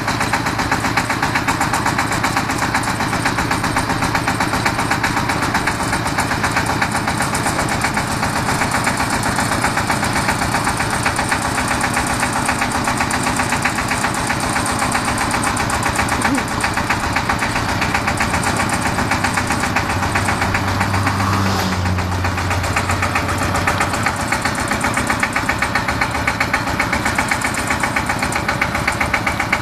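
Diesel engine of a four-wheel articulated boom lift running steadily with a fast, even pulse, powering the boom as the work basket is raised and lowered. A low hum joins for a few seconds about two-thirds of the way through.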